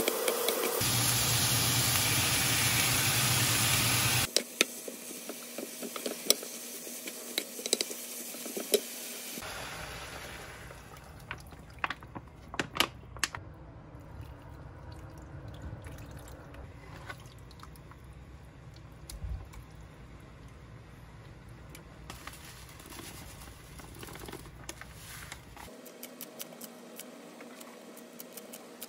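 Food cooking in a wok, in several short clips: a loud sizzle at first, then broth poured into the pan and a stew simmering quietly, with scattered clicks of a wooden spatula against the pan.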